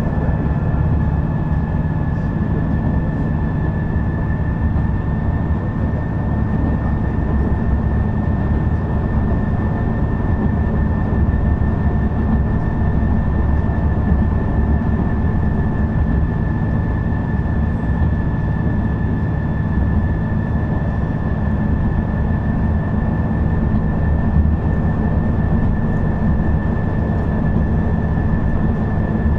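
Shigaraki Kohgen Railway SKR310-series diesel railcar SKR311 running along the line: a steady, heavy low rumble of engine and wheels, with a thin, steady high whine running through it.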